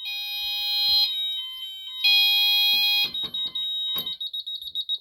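Electronic fire alarm sounders going off during a system test: several high tones sounding at once, then about three seconds in only a fast-pulsing high beep is left.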